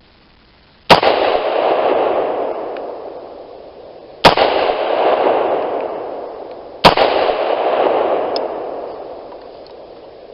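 Three shots from a Radical Arms AR-15 in .223, a few seconds apart, each cracking sharply and then trailing off in a long rolling echo of about three seconds.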